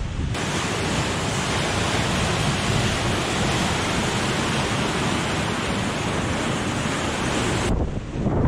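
Surf washing over a rock shelf, a steady rushing hiss of breaking water. About three-quarters of the way through it gives way to wind buffeting the microphone.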